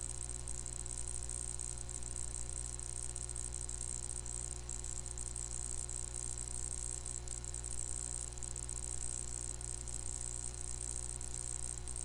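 Steady electrical hum with a high hiss, unchanging throughout: the background noise of the recording setup between the narrator's remarks.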